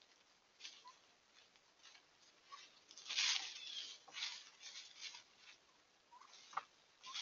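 Wild turkeys walking and scratching through dry leaf litter while foraging: faint, irregular rustling and crunching, loudest about three seconds in. A few short, soft chirping calls are heard among the rustles.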